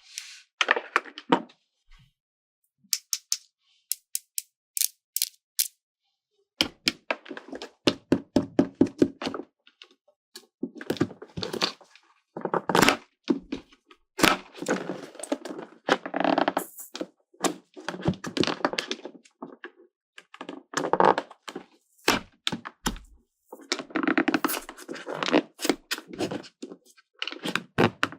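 Small plastic toy pieces and packaging being handled: clusters of quick clicks, clacks and crackles with short pauses between them.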